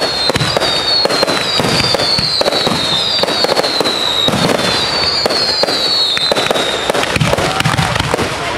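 Fireworks battery firing from the ground in rapid succession: a dense, continuous run of bangs and crackling, with high whistles falling slightly in pitch about once a second.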